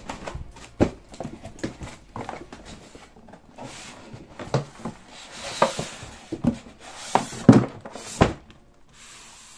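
HP DeskJet 2720 printer being slid out of its cardboard carton: the box and packaging scrape and rub, with a series of sharp knocks, the loudest in the second half.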